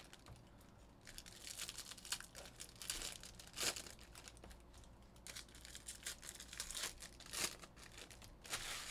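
Foil wrappers of Bowman Jumbo baseball card packs being torn open and crumpled by hand: faint, irregular crinkling and tearing, with a few louder crackles.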